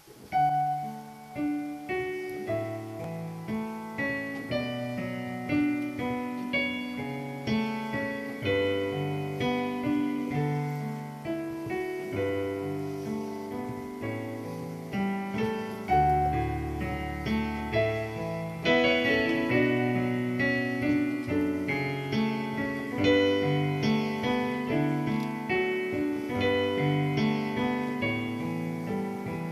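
Solo piano playing, chords under a melody, each note struck and left to ring.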